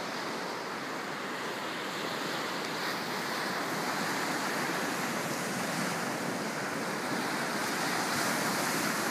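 Small ocean waves breaking and washing up on a sandy beach, a steady surf hiss that grows slightly louder toward the end.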